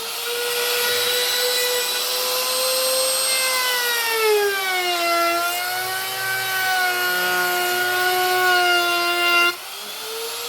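Makita wood router running at high speed and surfacing the face of a wooden slab slice, a high-pitched motor whine over the hiss of chips being cut. The whine dips in pitch about halfway through as the bit takes a heavier cut, then holds steady under load. Near the end it drops in loudness as the cut eases off.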